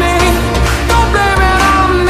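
Background pop music: a steady bass and drum hits under held melodic notes.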